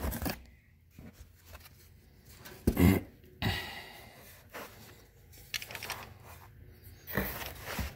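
Packaging being folded back and handled: scattered soft rustles and light clicks, with louder bursts of rustling about three seconds in and again near the end.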